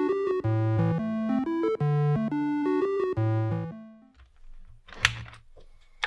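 Background synthesizer music with a repeating keyboard figure, which fades out about four seconds in; a single sharp click follows about a second later.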